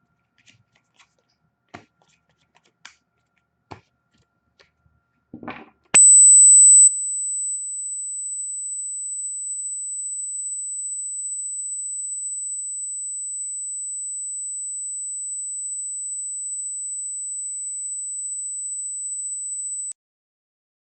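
A few faint clicks, then a steady, high-pitched electronic tone that starts suddenly about six seconds in. It is very loud for its first second, drops to a lower steady level, and cuts off abruptly near the end. This is an audio fault in the recording rather than a sound in the room.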